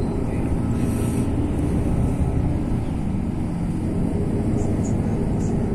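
Steady low rumble of engine and tyre noise heard from inside a moving vehicle.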